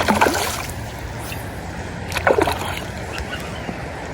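Creek water running steadily, with two short splashes about two seconds apart, the first right at the start.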